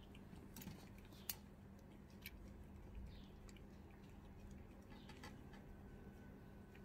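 Two cats eating wet tuna from stainless steel bowls: faint, scattered clicks and smacks of chewing and licking, with one sharper click about a second in, over a faint steady low hum.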